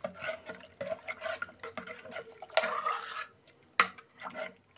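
Metal spoon stirring a thin rice-flour and water batter in a metal pot, scraping round the pot in repeated strokes to break up lumps. There is one sharp clink against the pot near the end.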